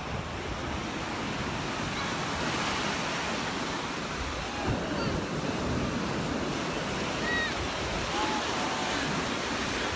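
Surf washing onto the beach as a steady rushing noise, with some wind on the phone's microphone.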